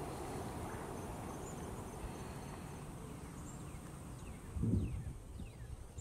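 Outdoor ambience: a steady high insect buzz over a low rumbling noise, with a few faint descending bird chirps and a short low thump about four and a half seconds in.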